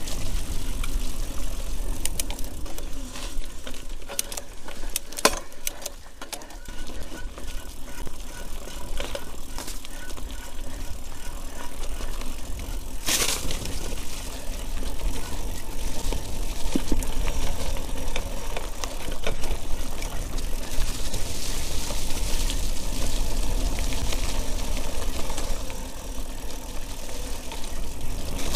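Mountain bike ridden over a wet, rooty forest trail: tyres on mud and roots, with the frame and chain rattling and clicking over the bumps and a low rumble throughout. A sharp clunk about 13 seconds in.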